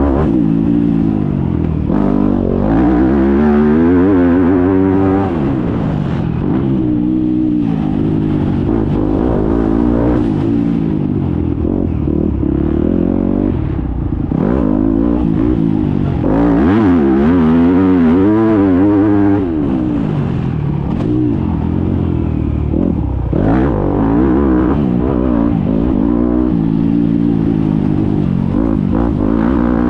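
Onboard sound of a Yamaha YZ250F four-stroke single-cylinder motocross engine revving hard. It rises and falls in pitch again and again as the throttle is opened and closed through the gears, with brief dips when the rider backs off.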